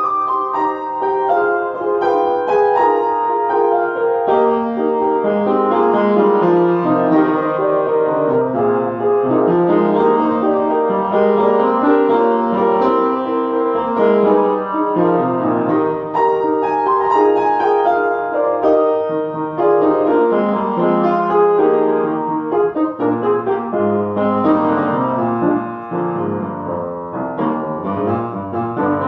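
Solo piano playing a classical piece, with quick successions of notes moving up and down across the keyboard.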